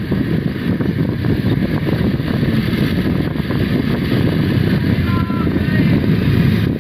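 Heavy engine and road noise of a large bus passing close by, a steady low sound growing slightly louder, with wind on the microphone.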